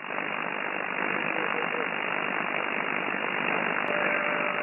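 Steady shortwave band noise hissing from a FLEX-1500 SDR transceiver's receiver between transmissions, with a faint steady whistle of a carrier coming in near the end.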